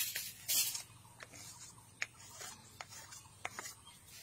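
Short hissing scrape strokes from hand work, two in the first second, then scattered light clicks and taps.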